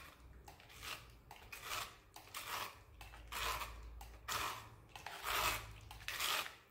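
Knife blade scraping wet, fibrous celery and kale pulp around in a plastic container, in a series of short irregular strokes, roughly one or two a second.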